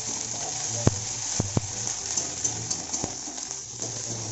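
Spice paste and tomatoes sizzling in oil in a pan while being stirred with a khunti (spatula), the masala being fried down (kosha) before the meat goes in. A few sharp knocks of the spatula against the pan, three of them in the first half.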